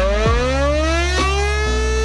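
Electromechanical fire station siren winding up, its wail rising in pitch and then holding steady about a second and a half in: the alarm that calls out volunteer firefighters.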